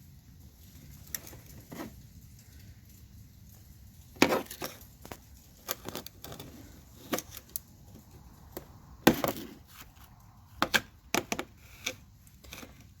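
Scattered clicks and knocks as a screwdriver pries up a scooter's rubber floor mat, pulling its rubber plugs out of their holes. The sharpest knocks come about four seconds in and again about nine seconds in.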